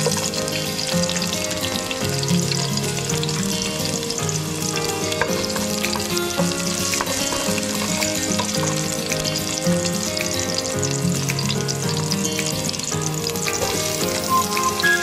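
Sliced garlic, ginger and onion sizzling steadily as they fry in hot oil in a pot, stirred now and then with a wooden spoon. Instrumental background music plays underneath.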